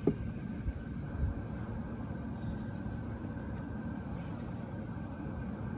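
Light handling noises of small engine parts: a sharp knock at the start, a softer one about a second in, then faint scratching, over a steady low hum.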